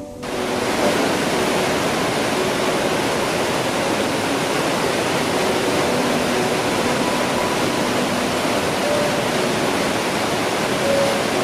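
Steady rush of Gullfoss waterfall, a large volume of white water pouring over its rocky steps.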